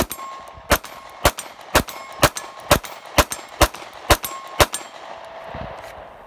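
Sig P365 9mm pistol firing ten shots in quick succession, about two a second, with no stoppage between them.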